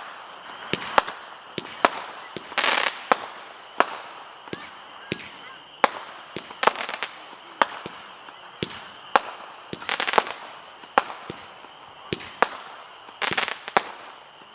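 Break of Dawn 5-shot Roman candles, several firing at once: a string of sharp pops at irregular intervals, one or two a second, with a few short hissing bursts.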